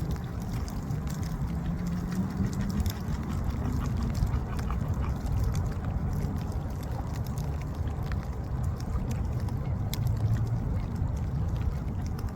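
Beaver gnawing on a branch: scattered small crisp clicks and crunches, over a low steady rumble with a faint hum whose pitch drifts.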